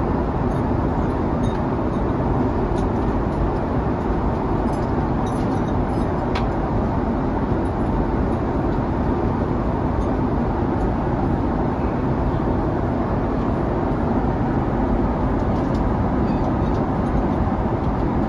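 Steady rushing cabin noise of a jet airliner in cruise: the constant drone of engines and airflow, unchanging throughout.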